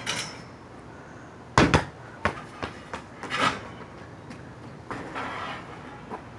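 A basketball bouncing on hard ground. It makes a loud knock about a second and a half in, then a few softer bounces that come quicker and quicker as the ball settles.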